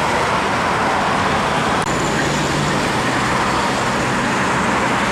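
Steady road traffic noise, an even rushing sound with a faint click about two seconds in.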